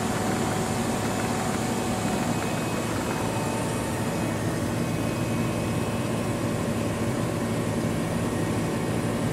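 Steady, unbroken engine drone with a constant low hum.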